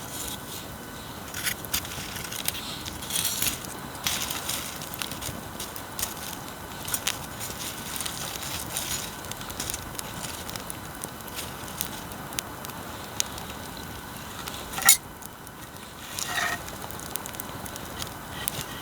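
Wood bonfire crackling, with irregular sharp pops over a steady hiss; one loud pop about 15 seconds in.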